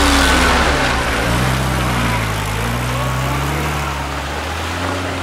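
Off-road 4x4's engine revving under load, its pitch rising and falling with the throttle, over a broad rushing noise.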